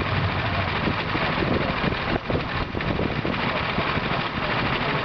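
Street traffic: vehicle engines running and idling close by, a steady, loud mix of motor noise, with a few brief knocks a little past two seconds in.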